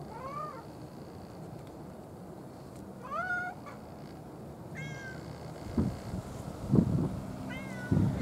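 Black cat meowing four times, each a short call that rises then falls in pitch. Several dull low thumps come in the second half; the loudest of them is louder than the meows.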